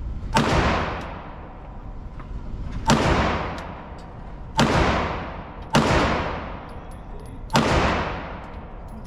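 Five gunshots fired at an uneven pace, roughly one to two and a half seconds apart, each followed by a long echoing decay.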